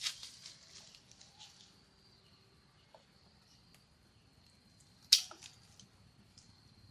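A steady, thin, high insect drone, such as a cricket or cicada. Near the start there are crackling clicks like dry leaves and twigs being trodden or rustled, and one sharp, loud snap about five seconds in.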